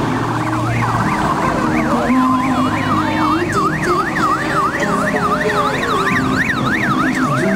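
Electronic siren yelping: a fast rising-and-falling wail, about three sweeps a second, getting stronger after the first second or so.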